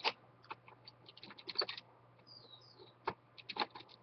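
Scattered light clicks and taps of tiny laptop screws and a small Phillips screwdriver being handled and set down on a tabletop, at irregular intervals. Two faint high chirps come a little past halfway.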